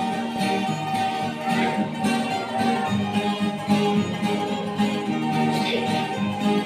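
Music led by a plucked acoustic guitar, with steady held notes: a church spiritual song.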